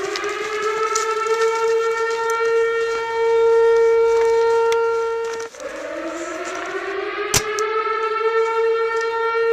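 Air-raid siren winding up to a steady wail, dropping out about five and a half seconds in and winding up again. A single sharp crack sounds about three-quarters of the way through.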